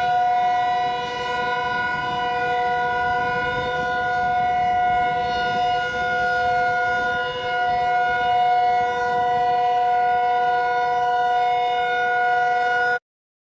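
Emergency alert siren sounding one steady, held pitch with a buzzy, overtone-rich tone, then cutting off abruptly near the end.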